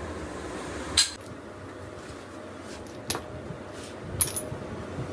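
Sharp metallic clinks and taps of metal parts or tools being handled and struck: three louder hits, about a second in, about three seconds in and a second after that, with a few fainter taps between, over a steady background hum.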